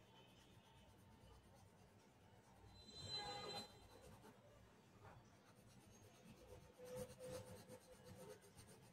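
Faint scratching of a colour pencil shading on paper, stronger for a moment about three seconds in and again around seven seconds.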